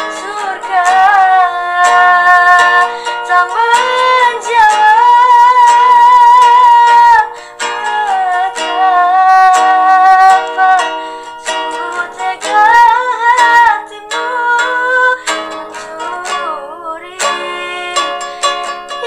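A woman singing a slow Indonesian song with long held, wavering notes, accompanied by a plucked guitar.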